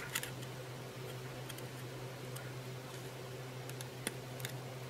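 Faint, irregular metallic clicks of tweezers picking at the retaining ring under the armature's pinion gear in an angle grinder, over a steady low hum.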